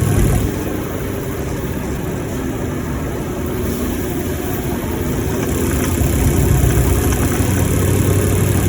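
2018 Ford F-150's 5.0-litre V8 running while driving. The engine sound eases off about half a second in and builds again from about six seconds in. The owner reports a knocking noise from the engine while driving.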